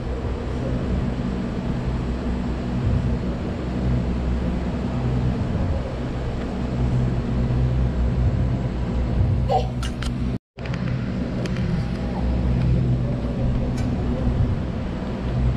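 Steady low motor rumble with a few faint clicks near the middle; the sound cuts out completely for a split second about ten seconds in.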